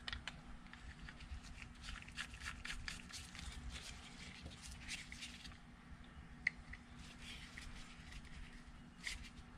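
Small clicks and taps of hand tools and plastic outboard carburetor parts being handled and fitted, thick in the first half, then a few single sharp clicks.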